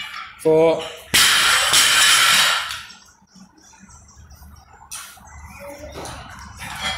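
A loaded barbell with bumper plates is dropped from overhead onto rubber gym flooring about a second in. It lands with a loud crash, then the bar and plates bounce and rattle for a second or so. Just before the drop there is a short grunt-like call.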